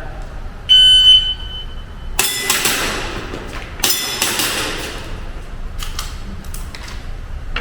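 A shot timer beeps once, a steady high tone lasting over a second. It is followed by a string of airsoft pistol shots with sharp metallic clangs that ring on, the loudest about two seconds and four seconds in, thinning out after about seven seconds.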